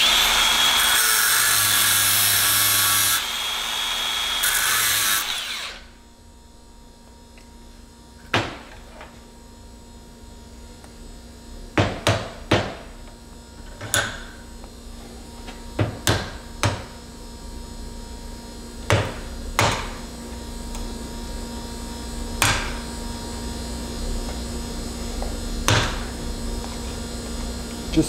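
Angle grinder with a cut-off wheel grinding into a crimped steel hydraulic hose ferrule for about six seconds, then stopping. After a pause come about ten sharp metal knocks at uneven intervals, from a screwdriver worked against the ferrule to split it off the fitting, over a low steady hum.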